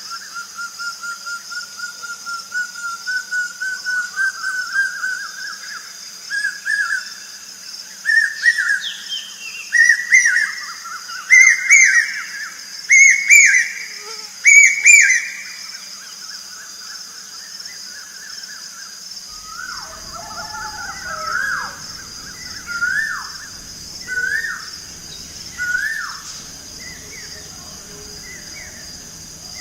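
Birds singing. A run of repeated whistled notes grows louder and climbs in pitch, loudest around the middle. Later come several short whistles that fall in pitch, over a steady high insect drone.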